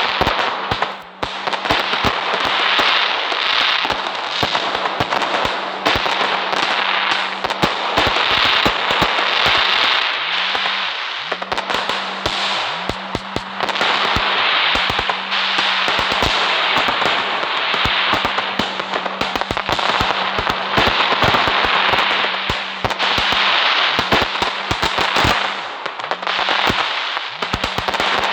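Firecrackers going off in a dense, continuous crackle of rapid sharp pops, with a brief lull about a second in. A faint steady low hum sits underneath.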